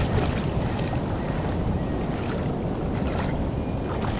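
River water flowing and rippling over a stony bed, with wind rumbling on the microphone.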